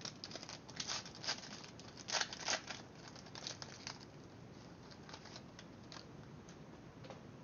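Trading card pack wrapper being torn open and crinkled by hand: a quick run of sharp crackles that thins out after about four seconds.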